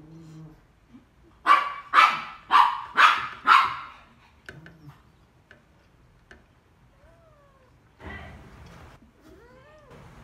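A dog barking five times in quick succession, about two barks a second. Fainter clicks and a few short squealing calls that slide up and down in pitch follow near the end.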